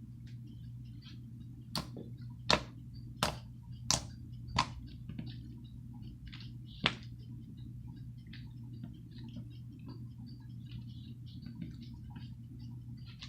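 A series of sharp pops: six loud ones spaced under a second apart in the first seven seconds, then many faint small crackles, over a steady low hum.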